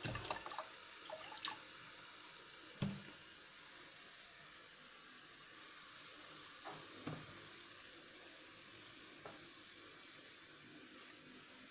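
Milk splashing as it is poured from a carton into a steel saucepan, stopping about half a second in. Then a faint steady hiss of pancakes frying in oil, broken by a few light knocks.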